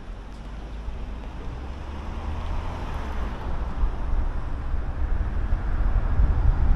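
Car driving on a highway: steady road and wind noise with a deep rumble that grows steadily louder toward the end.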